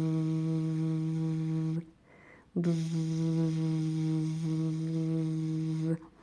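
A woman's voice making a steady, buzzing hum with the tongue tip held just off the alveolar ridge, the "airplane hums" articulation exercise. It comes as two long held notes on one pitch, with a short breath between them about two seconds in.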